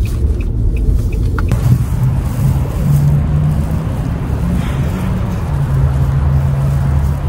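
Car noise: a steady low rumble with a low hum, first inside a moving car, then after a cut about a second and a half in, a fuller rumble outdoors among cars.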